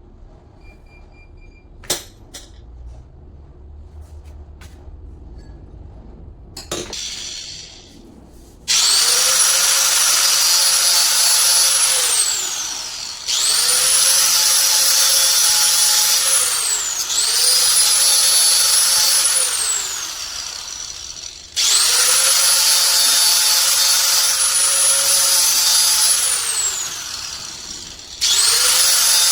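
An electric power tool's motor runs at full speed in four bursts of a few seconds each. After each burst the pitch falls as the motor spins down before it is triggered again. Before the first run there is a sharp click about two seconds in and a knock about seven seconds in.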